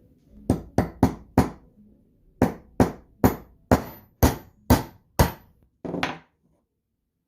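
Hammer blows: four quick strikes, a short pause, then seven more at about two a second, ending with one longer, duller knock.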